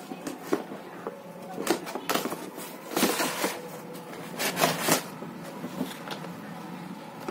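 Cardboard toy box being handled and opened, its cardboard inner tray slid out: rustling and scraping of cardboard in several short bouts, with a few light knocks.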